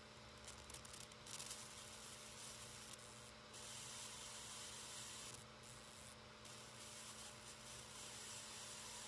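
Small desktop Tesla coil's brush discharge hissing faintly and steadily from its top electrode. The hiss drops away briefly a few times, with a faint steady hum underneath.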